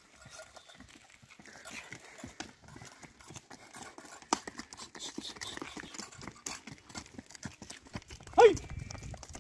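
Hooves of a pair of Hallikar bullocks clopping in an irregular patter on a paved road as they are walked along. Near the end a brief, loud call with a falling pitch cuts in.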